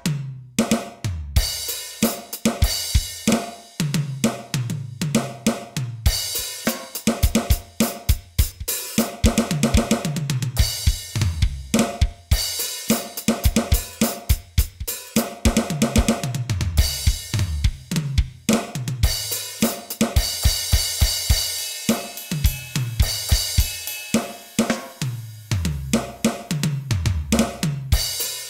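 Electronic drum kit sounds from a Roland TD-8 drum module, played as a continuous beat of kick, snare, hi-hat and cymbals. Frequent tom fills drop in pitch after each hit.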